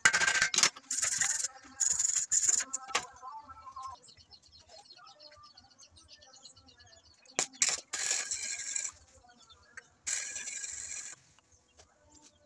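MIG welder tack-welding a steel frame: short bursts of arc crackle and hiss, several in quick succession in the first three seconds, then two longer ones of about a second each later on.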